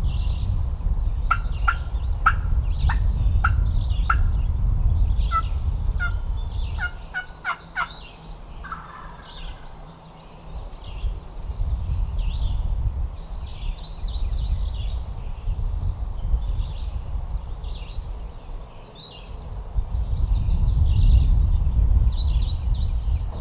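Wild turkey gobbling, answered by a run of short sharp notes early on, with songbirds calling over it. A low wind rumble on the microphone is strongest at the start and near the end.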